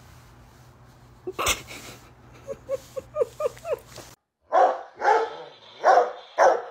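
A dog gives about six short, quiet rising squeaks. Then a Rottweiler barks loudly, four barks in about two seconds.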